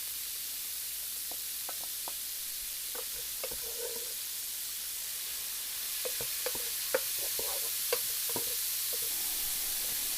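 Chicken pieces sizzling as they fry in a pot with the sautéed rice, onions and garlic. A spoon stirs and taps against the pot now and then. The sizzle gets a little louder about six seconds in.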